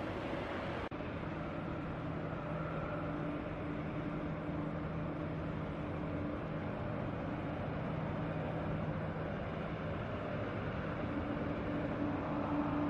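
Jet engines of a twin-engine widebody airliner running at low power while it taxis, a steady engine noise with a low hum, growing a little louder near the end.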